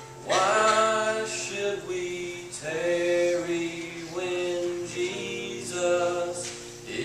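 A young man singing a song into a microphone, entering about a third of a second in with held, wavering notes in several phrases, over sustained instrumental accompaniment.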